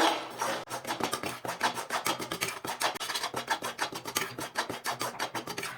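A spatula scraping and stirring dry gram flour across the bottom of a heavy pan as it roasts, in quick repeated strokes of about three or four a second.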